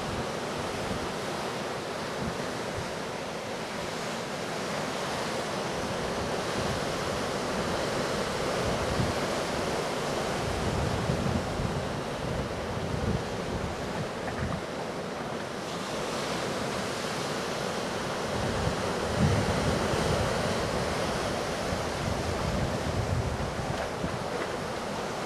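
Storm surf from Hurricane Delta breaking along a jetty, a steady rushing roar of waves. Wind buffets the microphone in low gusts, heaviest about eleven and nineteen seconds in.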